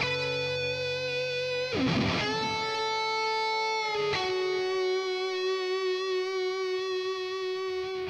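Electric guitar music: strummed chords, each held and left ringing, with a new chord struck about two seconds in and another about four seconds in.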